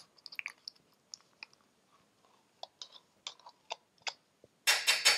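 A metal fork scraping and tapping sour cream out of a plastic tub into a pot of millet: a string of small, quiet clicks and squelches, then a louder scrape near the end.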